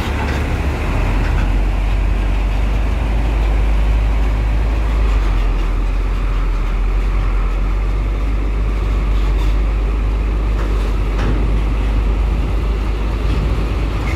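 Hino box truck's diesel engine running as the truck drives slowly up a ferry loading ramp: a steady, loud, deep rumble.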